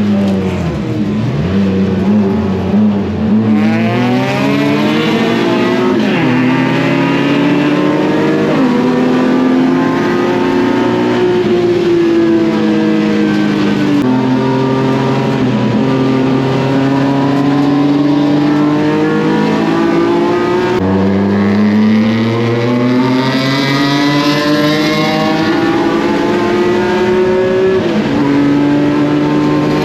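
S54 straight-six engine of a BMW E36 race car under hard driving on track. The pitch climbs through each gear and drops sharply several times as it shifts or brakes for corners.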